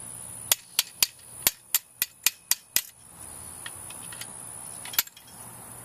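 Screwdriver tapping and prying at the small cap in a pop-up canopy's top corner bracket, working it loose: a quick run of about nine sharp clicks over two seconds, then one more click near the end.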